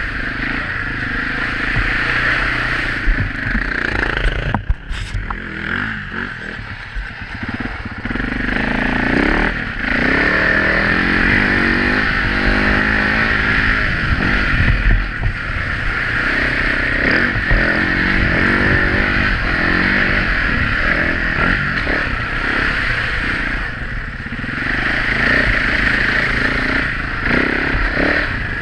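Enduro motorcycle engine running hard and revving up and down as the rider works the throttle along a muddy trail. The engine sound drops briefly about five seconds in.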